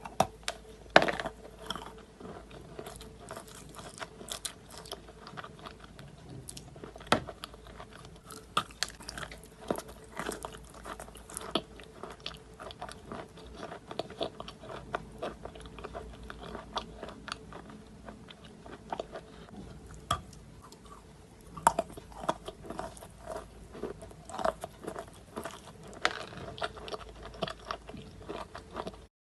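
Someone biting and chewing Khrapovsky edible chalk: crisp crunches at an irregular pace, with louder bites scattered among them.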